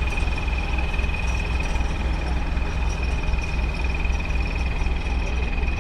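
An engine running steadily, with a low even throb and a constant high whine.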